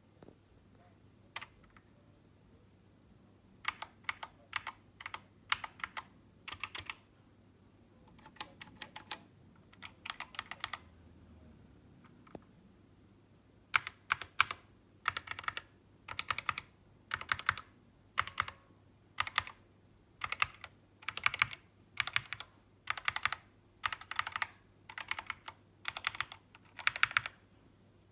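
Typing on a GK61 mechanical keyboard with red (linear) switches: runs of rapid keystrokes. It starts about four seconds in, pauses twice, then goes on in regular clusters of keystrokes until near the end.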